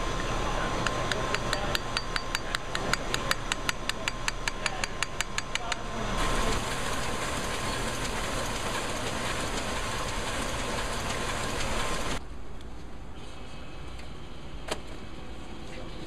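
A hammer tapping rapidly and evenly on a metal forme of type in a press bed for about six seconds. Then a small sheet-fed offset press running steadily, and the last few seconds are quieter with a single click.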